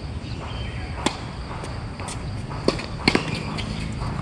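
Tennis rally: sharp pops of the ball off rackets and the court, about five in all, the loudest a close pair about three seconds in, over a steady low rumble.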